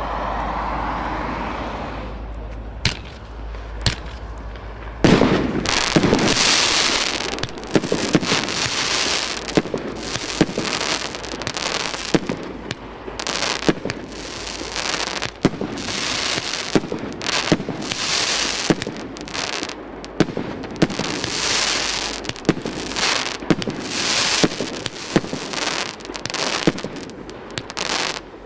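'Jupiter' multi-shot fireworks cake firing. A couple of single pops come first, then from about five seconds in a continuous run of shots. Each launch is followed by hissing, crackling bursts.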